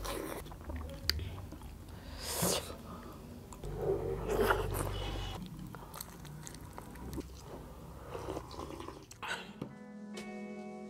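Close-miked chewing and mouth sounds of people eating soft millet dhido and chicken curry by hand, in irregular bursts. Music starts near the end.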